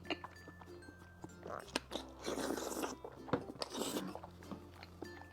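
Close-miked chewing and biting of a mouthful of wide noodles in sesame paste, in irregular bursts, the busiest about two seconds in and again near four seconds, over soft background music.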